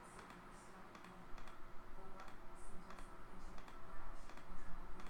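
Computer mouse clicking repeatedly, a few clicks a second and louder from about a second in, as an on-screen list is re-randomized over and over.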